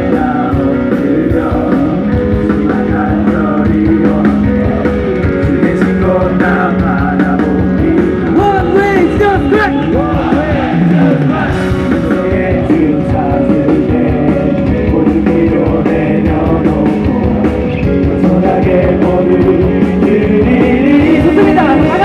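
Loud, upbeat worship music with singing and a steady driving beat, echoing through a large hall.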